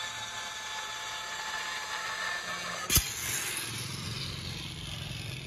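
Kainuo 4003 handheld electric tile cutter running as its disc cuts a 45-degree bevel in glazed ceramic tile. About three seconds in there is one sharp click, then the motor winds down with a falling whine.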